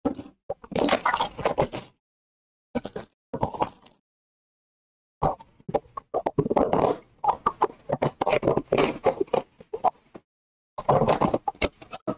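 A sealed trading-card hobby box being unwrapped and opened by hand: packaging and cardboard rustling and scraping, in short spells broken by dead silence.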